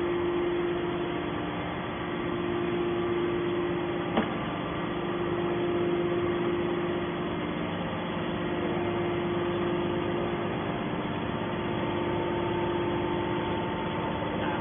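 Scrap-metal processing machine running with a steady mechanical hum, with a single sharp click about four seconds in.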